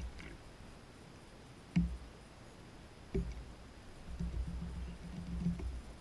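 Juvenile gull working at a plastic water bowl: a splash of flicked water, two sharp knocks about two and three seconds in, then a low, rapid pattering of beak and feet near the end.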